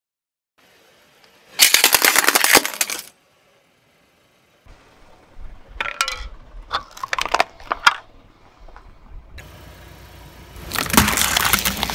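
A car tyre rolling over and crushing crunchy objects. There is a dense burst of crackling about two seconds in, then scattered sharp cracks and clicks over a low rumble, and near the end a loud crunch as plastic drink bottles are flattened.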